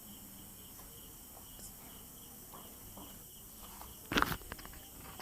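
A faint, steady, high insect chirring in the background, with a short knock and rustle of handling about four seconds in, followed by a few light clicks.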